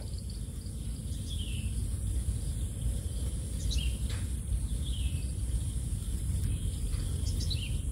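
Outdoor field ambience: several short falling bird chirps scattered through, over a steady high insect whine and a low rumble.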